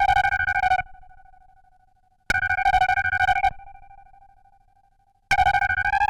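Analog synthesizer imitating the Showa-era King Ghidorah cry: three short, shrill, fluttering calls about two and a half seconds apart, each trailing off in a fading echo, the last rising slightly in pitch at its end.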